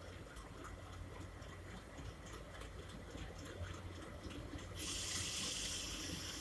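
Low, steady rumble of two WDM-3A ALCO-type diesel locomotives hauling a departing train. About five seconds in, a loud, steady hiss starts and drowns out the rumble.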